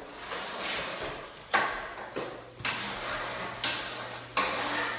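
Electric kick scooter's small hard wheels and metal deck rattling over a concrete floor, with a string of sharp knocks as it is tipped up and dropped, the loudest about one and a half seconds in.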